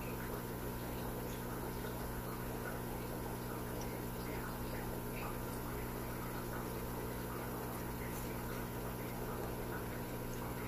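Steady hum of running aquarium equipment, with faint bubbling water and scattered small pops.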